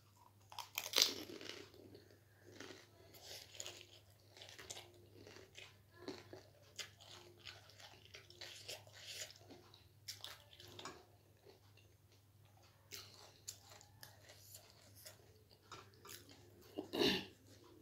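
A person chewing a crunchy snack close to the microphone: a run of short crunches, with louder bites about a second in and near the end.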